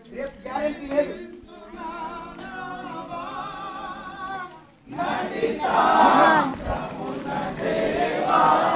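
A group of people singing together, several voices on held, wavering notes; the singing dips briefly and then comes back louder and fuller about five seconds in.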